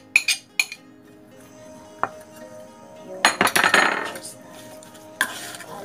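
Metal spoon clinking and scraping against a ceramic plate and a stainless steel mixing bowl. A few sharp clinks come at the start and a single click about two seconds in, then a rattling burst of scraping just after three seconds.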